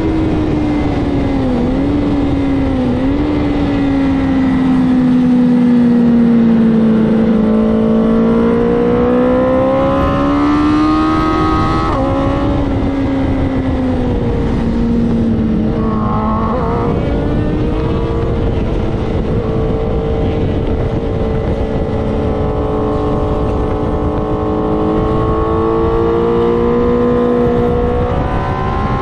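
BMW S1000RR inline-four sports-bike engine at track speed, heard from onboard over steady wind rush. The engine note rises and falls with the throttle through corners and gear changes, with a sharp drop in pitch about twelve seconds in.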